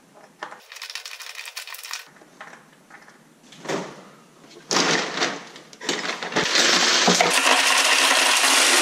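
A refrigerator's door ice dispenser running, with ice clattering down into a container. It starts about halfway through and grows louder and steadier. Before it there are light clicks and knocks.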